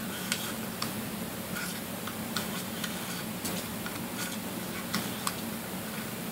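Light, unevenly spaced clicks as a cardboard tube is cut and bent by hand into a small-animal toy, over a steady low hum.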